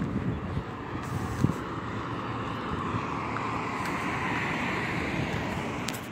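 A distant engine droning, growing louder and rising a little in pitch in the middle, over a low rumble of traffic.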